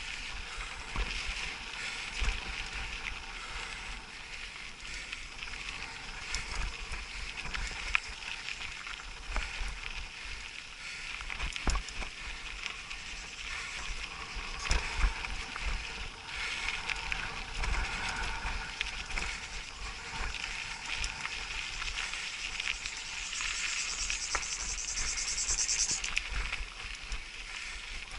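Mountain bike rolling over a rough dirt and gravel track: tyre noise on loose stones, frame and parts rattling, with frequent small knocks and jolts and wind rumble on the camera microphone. Near the end a higher, even buzzing lasts for a couple of seconds.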